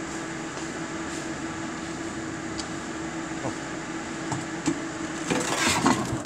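Kitchen range hood exhaust fan running with a steady hum. Near the end come louder rustles and knocks as the phone camera is handled and moved.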